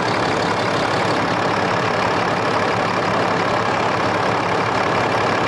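Cummins turbo-diesel engine idling steadily, warmed up, with its oil filler cap off for a blow-by check. There is no blow-by at all coming out of the filler.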